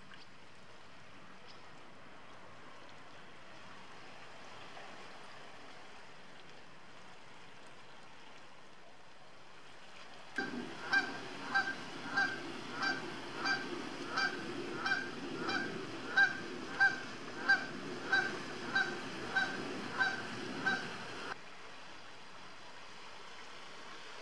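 Canada goose honking over and over in a steady series, about seventeen honks at roughly one every two-thirds of a second. The honks start about ten seconds in and stop abruptly about eleven seconds later, over faint steady background noise.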